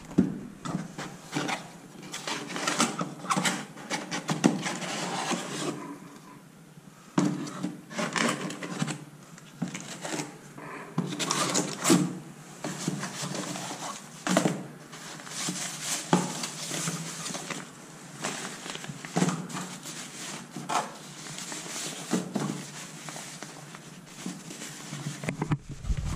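Hands handling a cardboard bike box and its packaging: irregular rustling, scraping and light knocks as boxes and wrapped parts are shifted.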